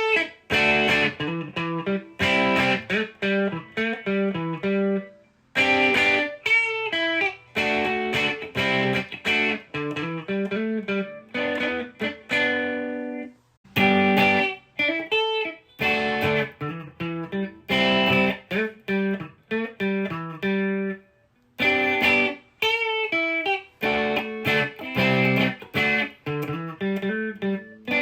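Humbucker-equipped electric guitar played through a Marshall DSL1 amp into a 2x12 cabinet, miked with an SM57 and with no added reverb or EQ. It plays a phrase of picked single notes and chords, repeated three or four times with a brief gap between each.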